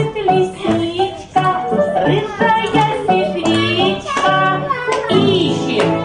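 A children's dance song: singing over a steady instrumental accompaniment.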